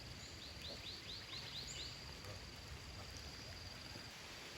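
Quiet rural outdoor ambience: a steady high insect drone, with a rapid run of short falling chirps, about four a second, that stops about two seconds in.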